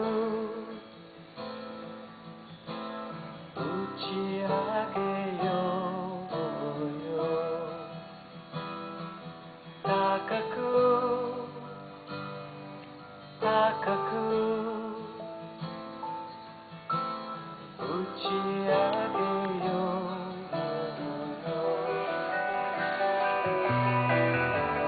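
A song with strummed and plucked acoustic guitar and a singing voice with vibrato, playing on a hi-fi stereo system.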